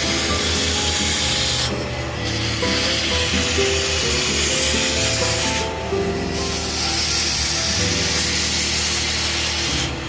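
Hand-held upholstery spray wand hissing as it sprays cleaning solution over chair fabric in passes, the hiss cutting out briefly about two seconds in and again about six seconds in. Background music plays underneath.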